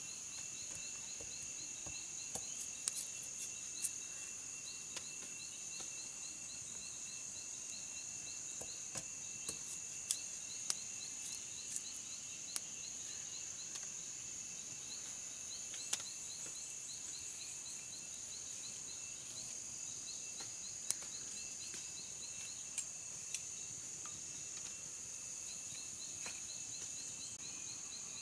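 Insects droning steadily in one high continuous tone, with a fast, evenly repeating chirp beneath it. Scattered sharp clicks come through irregularly, most of them in the first half.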